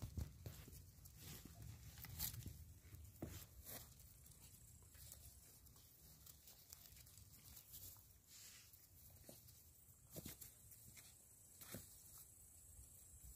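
Faint scuffling from American Staffordshire Terrier puppies play-fighting on grass and rock: paws and bodies scraping, with scattered soft clicks over near silence.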